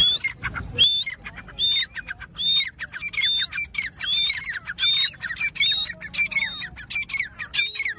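A partridge calling over and over, about one call a second, each a short high note that drops in pitch.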